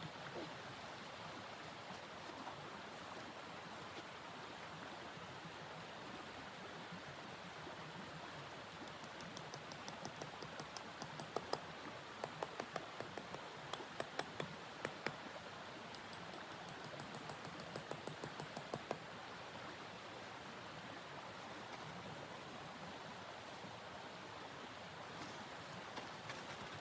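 A steady hiss, like wind or a storm, with a run of sharp, irregular crackles and clicks through the middle.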